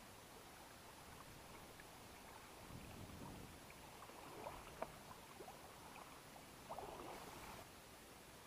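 Faint splashing and sloshing of shallow river water as a hooked barbel is brought to the net and handled in the water, with a couple of sharp clicks about halfway through.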